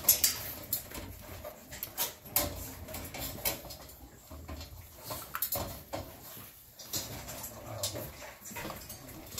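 American bully puppy eating dry kibble from a shallow metal pan: irregular crunching, with clicks and clinks of kibble and teeth on the metal.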